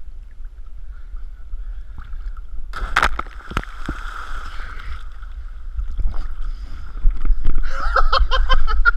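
A cliff jumper hitting the lake with a sharp splash about three seconds in, heard from a camera at the water's surface, followed by water sloshing and lapping against the camera, growing louder and choppier near the end.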